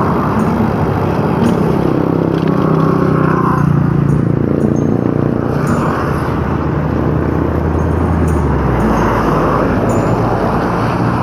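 Road traffic heard from a moving bicycle: engines of passing cars and motorcycles running close by, over a steady rush of wind and road noise. A deeper rumble comes in about eight and a half seconds in.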